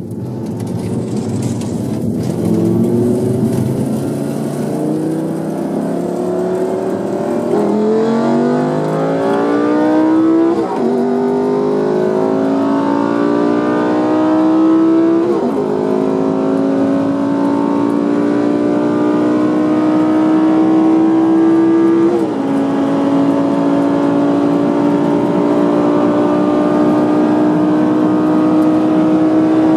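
Lamborghini Gallardo's V10 engine at full throttle, heard from inside the cabin: the revs climb steadily through each gear and drop sharply at upshifts about 8, 11, 15 and 22 seconds in, each gear held longer than the last.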